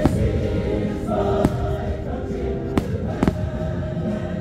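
Show music with a singing choir, broken by four sharp firework bangs: one right at the start, one about a second and a half in, and two close together near three seconds in.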